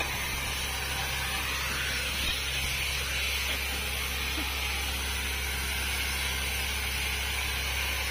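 Borewell drilling rig running steadily: a constant engine hum with an even hiss over it.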